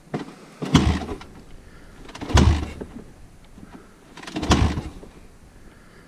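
Dirt bike being kick-started: three kicks about two seconds apart, each turning the engine over briefly without it catching. The engine may be flooded after the bike tipped over.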